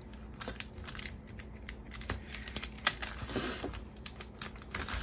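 Irregular light clicks and taps of paper sticker sheets being handled and slid across a wooden tabletop, with one sharper click about three seconds in.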